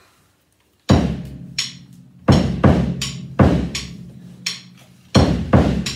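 Acoustic drum kit starting a slow groove about a second in: bass drum and snare hits with cymbals, and a low ringing tone sustained beneath the hits.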